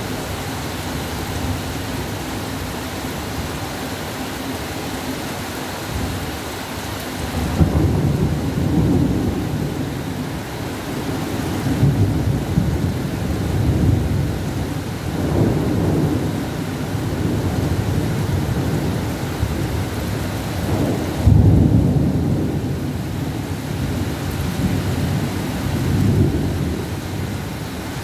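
Steady pouring rain with thunder rolling in repeatedly: deep rumbles swell up from about a quarter of the way in, and the loudest, most sudden one comes about three-quarters of the way through.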